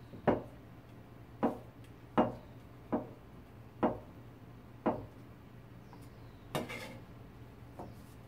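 Cleaver chopping pressed dried tofu on a plastic cutting board: six sharp chops, roughly one a second. Near the end, a short scrape as the cut strips are swept off the board with the blade.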